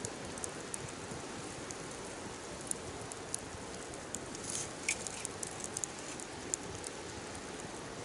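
Wood fire burning: a steady hiss and rush with scattered crackles and pops, a louder pop about five seconds in.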